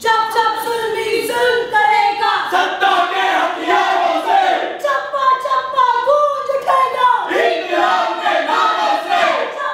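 A group of actors' voices singing together loudly, starting suddenly at once.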